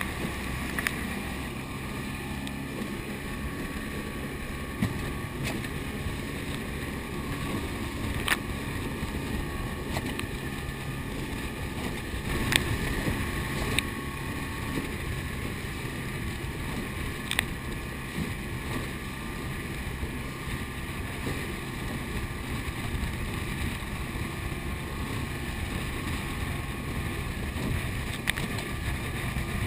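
Steady rush of wind on the microphone and water streaming past a moving inflatable boat on choppy sea. A few sharp knocks of spray or the hull slapping the waves break through now and then.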